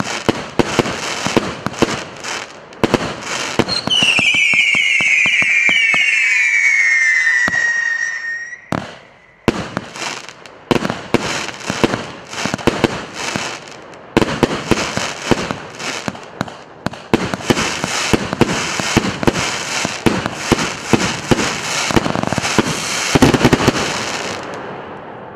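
PC890 consumer firework battery (cake) firing: rapid launch shots and bursts, then for about four seconds a cluster of screaming whistles all falling in pitch. After a brief lull, another long run of rapid-fire shots and crackle that dies away near the end.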